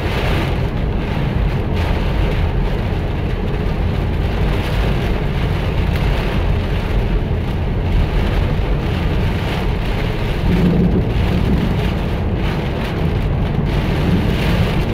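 Heavy rain beating steadily on a car's roof and windshield, heard from inside the cabin, over a low rumble of tyres on the wet highway.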